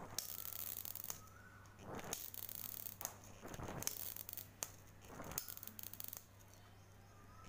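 High-voltage electric arc crackling and buzzing in about four bursts of roughly a second each, switched on and off, with a short rising whine before some of them. The last couple of seconds are quiet.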